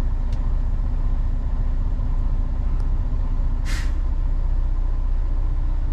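Semi truck's diesel engine idling with a steady low rumble, heard from inside the cab. A short hiss stands out about halfway through, with a couple of faint ticks before it.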